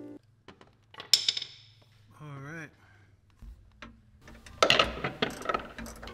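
Ratcheting box-end wrench clicking rapidly as nuts are tightened onto brass through-bolts in the wooden hull, starting about four and a half seconds in. A single metal clink comes about a second in.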